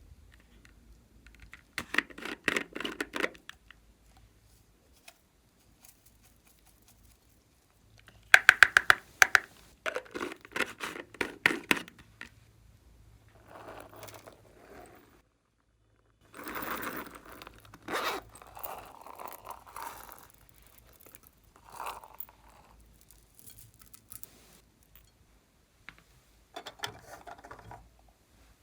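Slime and the things being mixed into it handled by hand: several separate spells of rapid crackling clicks and scraping, the loudest clicking spells about two seconds in and from about eight to twelve seconds.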